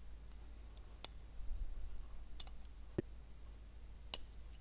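A few small metallic clicks of a steel pick against a piston ring seal and the turbine shaft of a Holset HX35 turbo, as the ring is spread at its gap and worked out of its groove; the sharpest click comes near the end.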